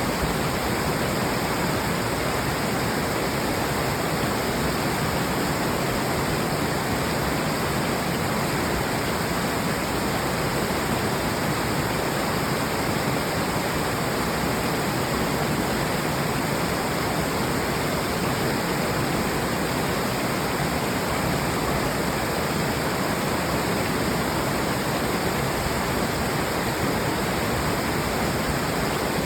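Waterfall with water pouring and splashing in a steady, unbroken rush.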